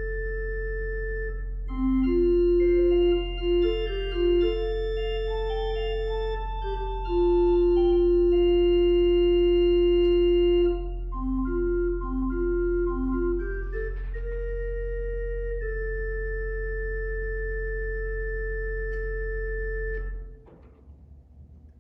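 Organ playing a slow melody of long held notes over a steady low bass tone, closing on a held chord that stops abruptly about twenty seconds in.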